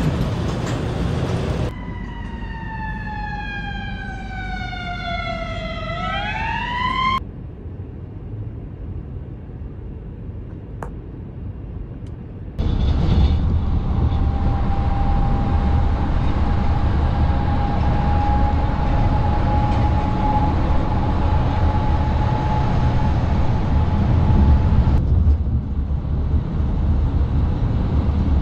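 Heavy road traffic heard from a moving vehicle alongside container trucks: steady tyre and engine noise. Early on, a wailing tone falls slowly in pitch for several seconds, then swings sharply back up and stops. About halfway through, louder road noise starts suddenly.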